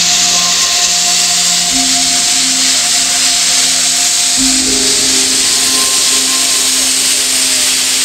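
Background music of long held tones over a loud, steady rush of water pouring into a dry dock basin from jets in the dock walls.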